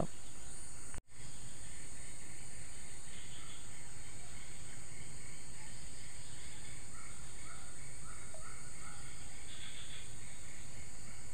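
Steady outdoor ambience at a tropical stream: a constant high insect chirring over an even background hiss, with faint short bird chirps scattered through. The sound cuts out for an instant about a second in.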